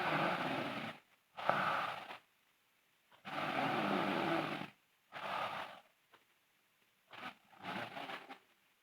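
A sleeping girl snoring in pairs of breaths, a longer snore followed by a shorter one, repeating roughly every three seconds. The last pair near the end is shorter and fainter.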